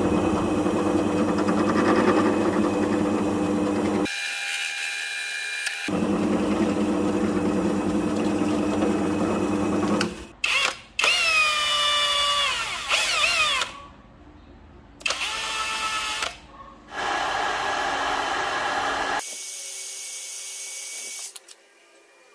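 Bench drill press running steadily as its bit drills into a small PVC block. After about ten seconds it gives way to a series of short, separate machine whines, some sliding down in pitch, that stop and start abruptly.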